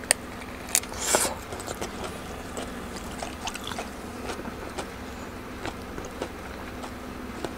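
Close-miked chewing of a mouthful of food: a sharp bite at the start and again just under a second in, a louder crackly bite a little after a second, then soft, scattered wet mouth clicks as the chewing goes on.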